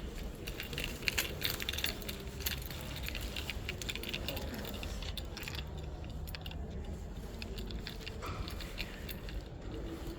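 Jangling and clinking of small hard objects, with many quick clicks, busiest in the first half, over a steady low hum.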